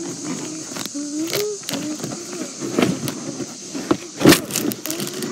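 Cardboard box being pried and torn at by hand, with crackling and scraping, and a sharp knock about four seconds in.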